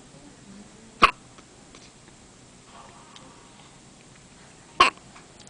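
Two sharp hiccups, one about a second in and one near the end, nearly four seconds apart.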